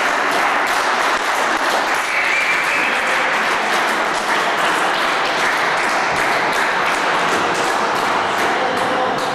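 Sustained applause: many people clapping at a steady level.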